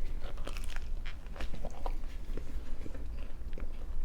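Close-up sounds of a person biting into and chewing a slice of frozen-pizza crust: irregular small crunches and mouth noises.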